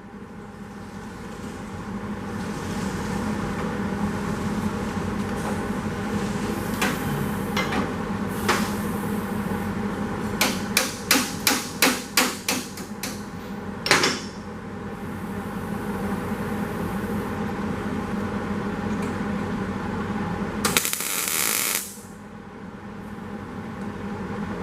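Hammer striking a sheet-metal body panel: a few single blows, then a quick run of about seven blows at roughly two a second, then one more, over a steady background hum. Near the end comes a burst of hissing noise about a second long.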